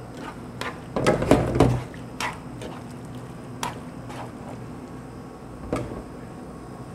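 Metal tongs clinking and scraping against a steel sauté pan while tossing fettuccine in a thick cream sauce. The loudest part is a cluster of knocks about a second in, followed by single clicks spread over the next few seconds.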